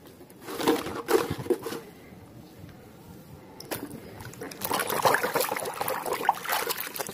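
Water sloshing and splashing in a plastic tub as hands swish muddy plastic toys around, with a short burst of handling noise near the start and heavier splashing from about halfway on.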